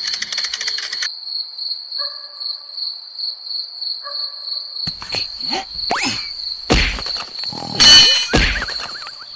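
Insect-like chirping, a steady pulsing high trill, with a short bell-like tone twice. From about five seconds in, a series of sharp knocks and sliding whistle-like glides take over, the loudest knock near the end.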